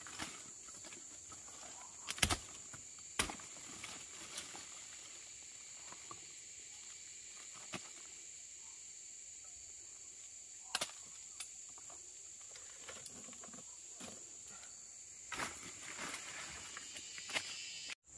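Insects chirring in a steady, high, even tone, with a few scattered knocks and rustles, the loudest about 2 and 3 seconds in.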